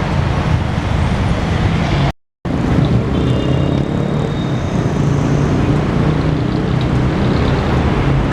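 Heavy city road traffic: buses, jeepneys and cars running past with a steady, loud engine rumble. The sound cuts out for a split second about two seconds in.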